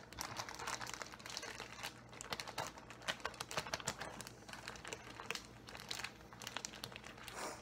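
Plastic bag crinkling and rustling in irregular crackles as it is shaken and squeezed by hand, coating pieces of meat in flour.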